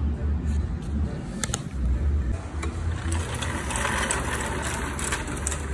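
Steel hydraulic floor jack being wheeled and positioned by its handle, with its metal parts clicking and rattling over a steady low rumble.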